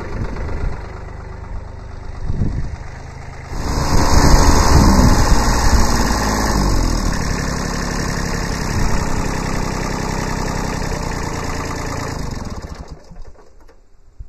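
Kubota D750 three-cylinder diesel engine running while it warms up. It grows much louder about three and a half seconds in, then dies away and stops near the end.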